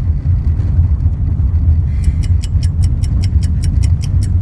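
Steady low rumble of a Toyota driving along a dirt track, heard inside the cabin. About halfway through, a fast, even ticking starts, about five or six ticks a second.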